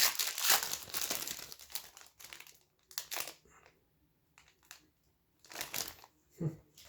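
Wrapper of a hockey card pack crinkling as it is opened and handled: a dense crackle for the first couple of seconds, then a few short rustles with quiet between.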